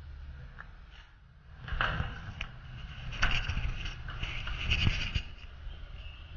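Camera handling noise: rubbing, scraping and several knocks as the camera is moved about, loudest between about two and five seconds in, over a low steady rumble.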